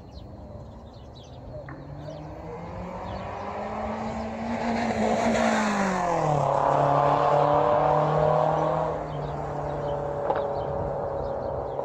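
A motor vehicle passing on the road. Its engine note climbs as it approaches, drops sharply as it goes by about six seconds in, then fades away. Small birds chirp faintly throughout.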